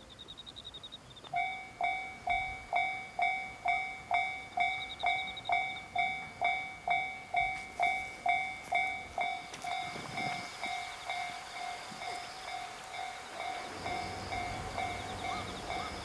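Railway level-crossing warning bell ringing in an even beat of a little under two strikes a second, starting about a second in. Near the end a low rumble of the approaching Series 87 diesel train comes in under it.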